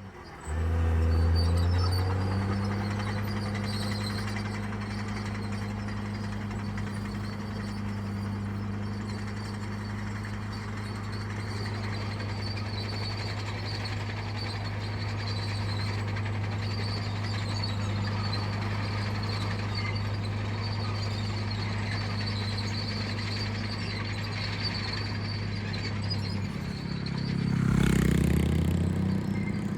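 Diesel engine of heavy construction equipment running steadily with a low hum, rising in pitch over the first couple of seconds. Near the end it gets louder and changes pitch, with a brief noisy burst.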